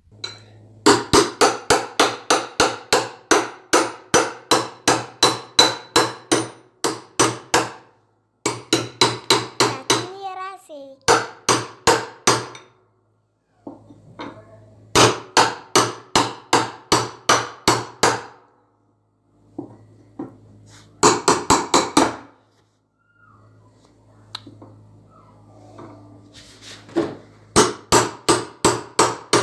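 Hammer blows on metal, about two to three a second in runs of several seconds with short pauses, each blow ringing. This is work on an Arthur Martin washing machine whose drum bearings are being replaced.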